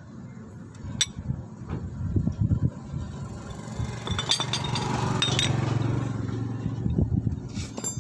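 Metal scooter CVT parts, the variator pulley, ramp plate and a wrench, clinking and knocking as they are handled and set down. A steady low engine-like hum swells through the middle and fades near the end.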